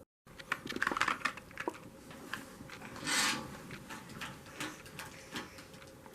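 Hard plastic toy pieces clicking and clattering as they are handled, with a short rustle about three seconds in.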